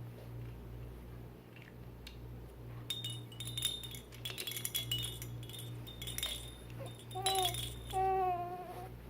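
Light clinks and rattles with a chime-like ring for a few seconds, then three drawn-out vocal sounds, each held at a steady pitch, from a small child babbling near the end.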